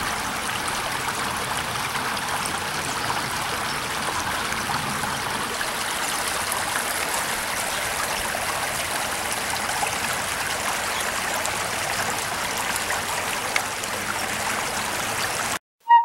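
Shallow creek running over rocks, a steady babbling that cuts off abruptly near the end. A brief high tone follows right at the close.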